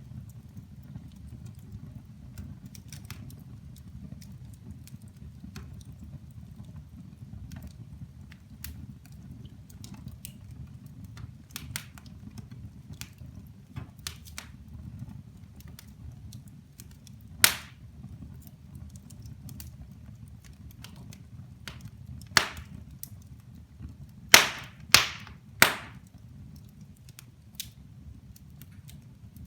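Wood fire burning in a fireplace: a low, steady noise of the flames under scattered small crackles. Sharp pops from the burning logs come once past the middle, again a few seconds later, and three times in quick succession near the end.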